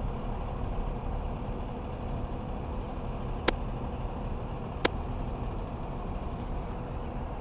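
Steady low outdoor rumble with a faint steady hum, broken near the middle by two sharp clicks about a second and a half apart.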